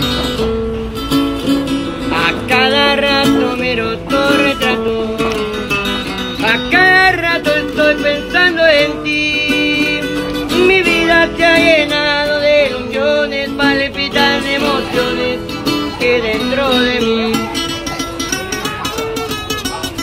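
Acoustic guitar strummed and picked live, with a man singing over it; the voice comes in about two seconds in and drops out near the end, leaving the guitar alone.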